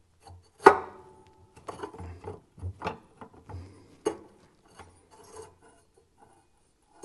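Metal clanking and scraping inside a wood stove's firebox as a stubborn burner tube is worked and twisted to lock it into place. A sharp clank about a second in rings briefly, and a few more knocks follow around three and four seconds.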